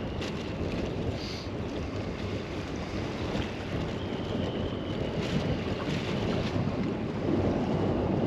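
Wind buffeting the microphone over choppy water, with small waves splashing around the boat.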